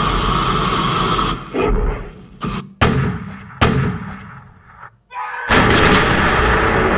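Weapon sound effects, like gunfire: a dense blast of noise that cuts off about a second and a half in, then three separate sharp shots, each with an echoing tail. Another dense blast starts about five and a half seconds in.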